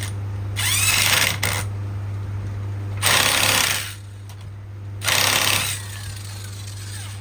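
Handheld power tool run in three short bursts, each under a second, driving a bolt tight on a motorcycle engine's timing-chain parts.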